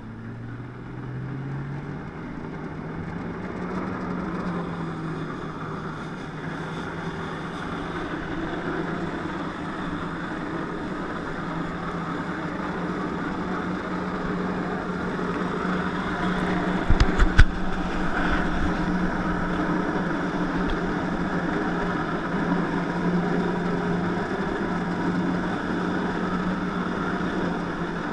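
Jet ski engine revving up over the first couple of seconds and then running steadily under load, driving water through the hose to a flyboard. A few sharp knocks come about two-thirds of the way through.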